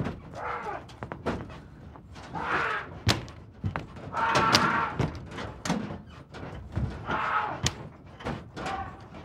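A physical scuffle: many sharp thumps and bangs of bodies hitting hard surfaces, with several loud cries between them, the longest about halfway through.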